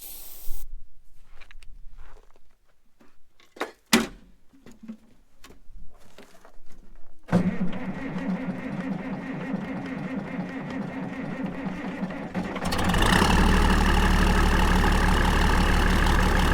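A few clicks and knocks, then an engine starts about seven seconds in and runs steadily. It speeds up and gets louder about four seconds before the end.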